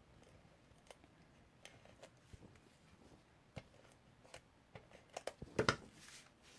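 Quiet handling of paper and card stock: scattered small clicks and rustles as adhesive glue dots are peeled off and pressed onto a card, with a short louder cluster of clicks about five and a half seconds in.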